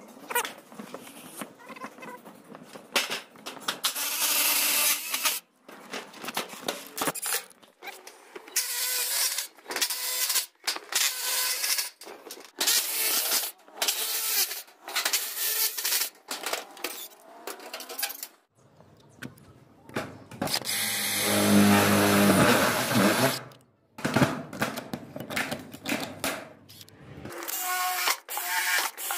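Cordless drill and driver running in many short bursts, boring holes and driving screws through galvanized sheet-metal roof flashing, with one longer run of motor hum a little past the middle.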